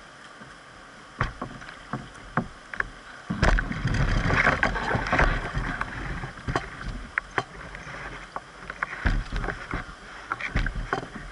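Water splashing and sloshing against a canoe, with many sharp taps and knocks on the hull. These are picked up close by a camera mounted on the deck. A louder rush of water comes in about three seconds in and eases off a few seconds later.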